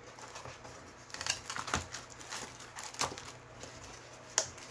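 A small cardboard box and its paper insert being handled and closed by hand: light rustling and crinkling with scattered small clicks, and a sharper tap near the end.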